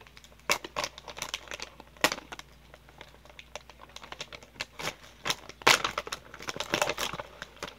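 A snack pouch crinkling and crackling irregularly as it is pulled open by hand.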